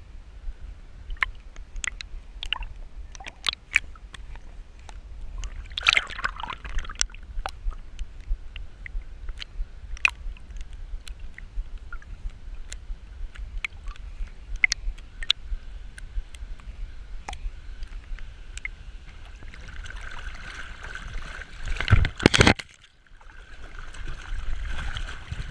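Water sloshing and gurgling around a swimming border collie and the GoPro on its harness, riding at the waterline, with many scattered sharp splashes. Near the end a loud burst of splashing, then the sound drops away for about a second before the water noise returns.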